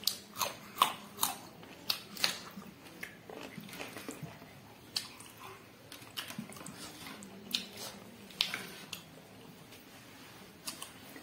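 A person eating: chewing and biting food at close range, with irregular sharp clicks and smacks, closer together in the first few seconds and sparser after.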